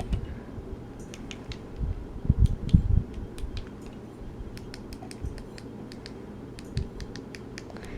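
Rapid small clicks of the buttons on a Midland HH54VP handheld weather radio being pressed one after another, with a few low bumps of the radio being handled about two to three seconds in.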